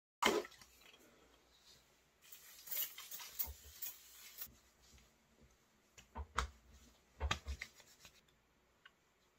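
Handling a plastic skin-toner bottle, then hands rubbing the toner briskly into the face, with a few sharp pats in the second half.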